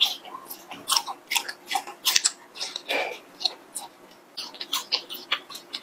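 Close-up chewing and biting of a long chili-coated latiao (spicy gluten strip): an irregular run of short mouth clicks, several a second.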